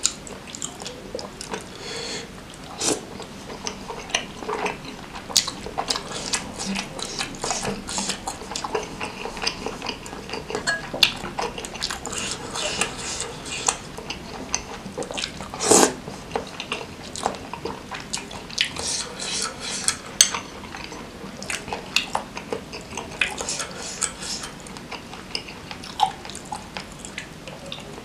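Close-miked eating: a metal fork clinking and scraping against glass bowls while spicy seblak noodles and broth are slurped and chewed. One clink about halfway through is louder than the rest.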